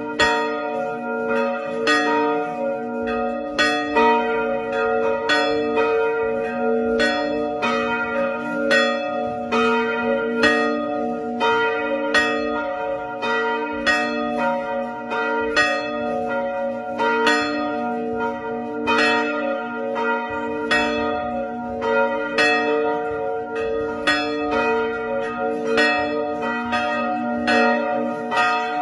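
Church bells pealing: several bells struck one after another, about two strikes a second, their tones overlapping and ringing on.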